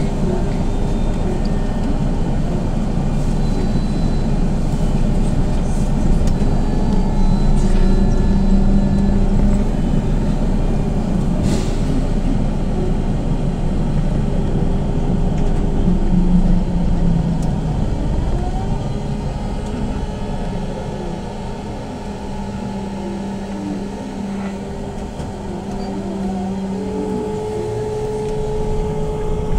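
BKM 321 trolleybus running, heard from inside: a steady hum and road rumble from the electric traction drive, with whining tones that glide up and down in pitch in the second half as the trolleybus changes speed.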